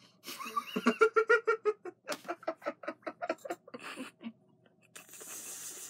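A man laughing hard in quick, rapid 'ha-ha' pulses, two bursts of them, with a second of steady hiss near the end.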